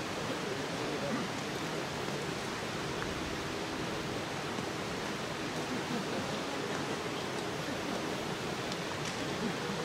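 Steady, even rushing background noise outdoors, with no distinct events.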